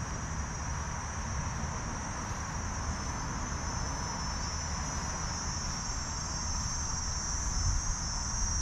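Steady, high-pitched chorus of insects chirring, with a low rumble underneath.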